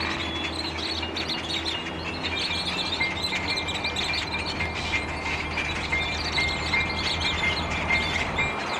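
A large roosting flock of great-tailed grackles calling together: a dense chorus of overlapping chirps, squeaks and whistles. A low steady hum runs underneath.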